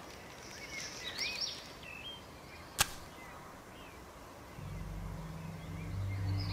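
Birds chirping, then a single sharp match strike about halfway through as a beedi is lit. Low steady musical tones come in near the end.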